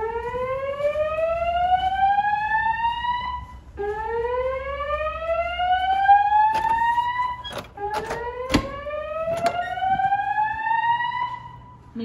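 Fire alarm speaker strobes (System Sensor SPSR) sounding the slow whoop evacuation tone: three rising sweeps, each about three and a half seconds long. A few sharp knocks sound during the second and third sweeps.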